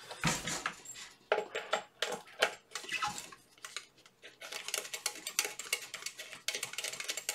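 Handling of a plastic-cased hot air rework station: the unit is set down and the hot air gun's round cable plug is fitted and screwed into its front socket, giving irregular clicks and rattles, thicker and faster in the second half.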